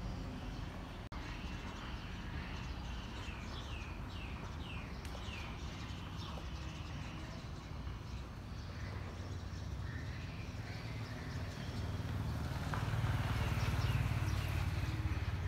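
Street background noise: a steady low rumble of traffic that swells about twelve seconds in, as a vehicle passes, and fades near the end. A quick run of high, falling chirps comes about three to five seconds in.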